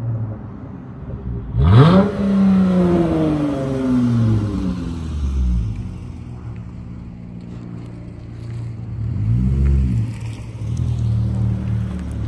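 Dodge Charger SXT's V6 exhaust through Flowmaster Super 10 mufflers: a sharp rev about two seconds in as the car accelerates, its pitch then falling away over the next few seconds. A second short rev comes near ten seconds, then a steady rumble.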